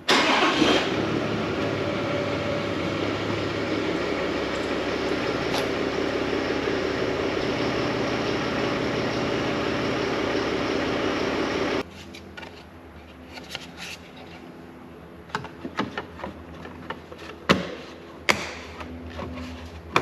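Toyota Land Cruiser 300 Series running steadily, likely while the new tail light is tested. It cuts off abruptly about twelve seconds in. A few light clicks and knocks follow.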